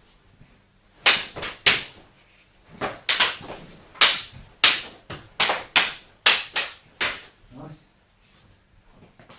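Double-stick eskrima sparring: sticks clacking sharply against each other in quick flurries of two or three strikes, over a dozen in all, with short pauses between exchanges and a lull near the end.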